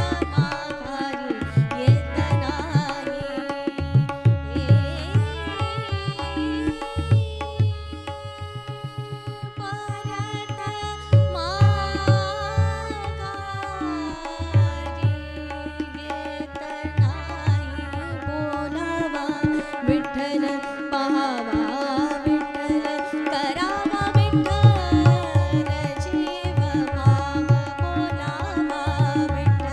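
A woman singing a Marathi devotional abhang, accompanied by tabla and harmonium. The tabla drops out briefly a little before the midpoint, leaving voice and sustained harmonium notes, then comes back in.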